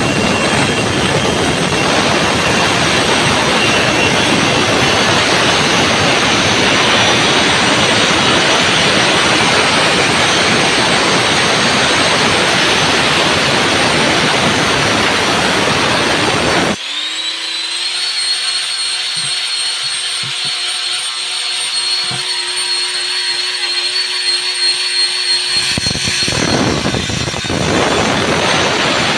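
A handheld power tool cutting, a loud harsh noise. About seventeen seconds in the blade comes free and the motor runs unloaded with a steady whine. A few seconds before the end the cutting noise returns.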